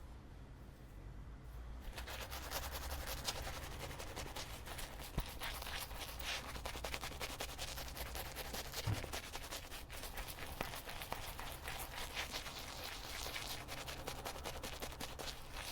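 Wet shaving brush swirling and working shaving soap into a lather: a dense, continuous scratchy brushing of rapid strokes, starting about two seconds in.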